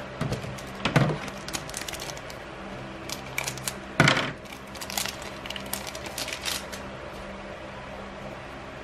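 Foil trading-card booster pack wrapper crinkling and being torn open, with the cards being slid out. The crackles come in a cluster, loudest about four seconds in, and die away after about six and a half seconds.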